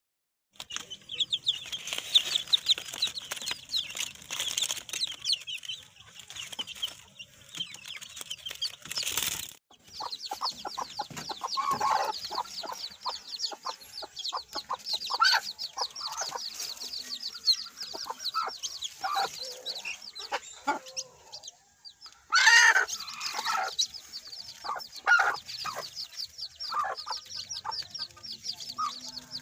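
Chicks peeping rapidly and continuously while a hen clucks to them. Two brief loud noises break in, about a third of the way in and again about three-quarters through.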